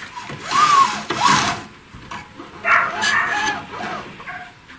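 Metal scraping with short squeals, twice, as the laser cutter's steel stepper-motor bracket is slid forward against the frame.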